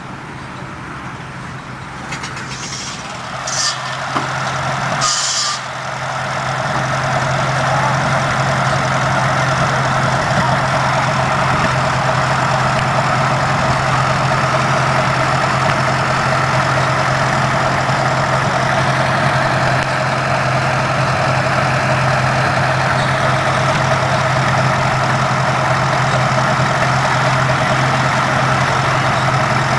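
Antique tractor engine running steadily, growing louder over the first few seconds and then holding an even note. Two short bursts of hissing noise come near the start.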